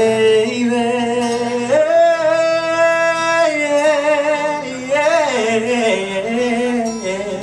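A man singing wordless held notes with acoustic guitar accompaniment, in a live performance. About two seconds in he holds one long steady note, then the voice slides up and down through shorter notes.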